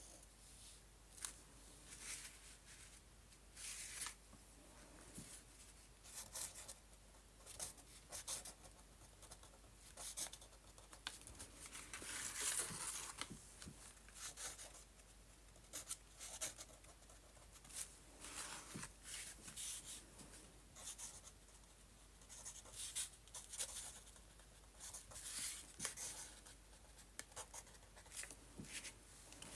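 Fine-tip pen drawing on paper: short scratchy strokes of the nib, coming in quick irregular runs. About twelve seconds in there is a longer rustle of paper as the page is slid and turned on the desk.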